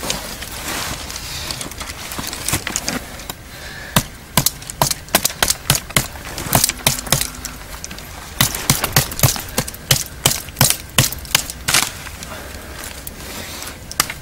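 A large knife hacking side twigs off a green branch: a quick series of sharp chops, about two or three a second, starting about four seconds in, with a short pause midway.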